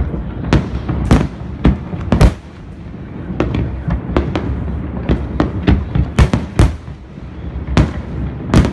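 Aerial firework shells bursting in quick, irregular succession: a dozen or more sharp bangs, sometimes several within a second, over a continuous low rumble of further explosions and their echoes.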